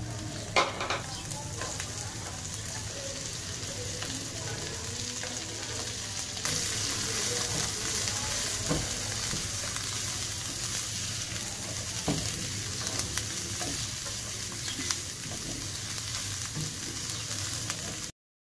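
Julienned carrot, shredded cabbage and green capsicum sizzling in oil in a non-stick frying pan while a spatula stirs and scrapes them, with sharp ticks now and then. The sound cuts off just before the end.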